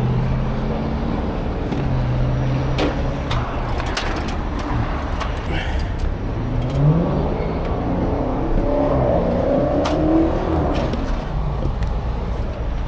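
Diesel engine of a heavy rotator tow truck running, with a low steady drone. Its pitch rises and falls between about six and eleven seconds in, with a few short metal knocks along the way.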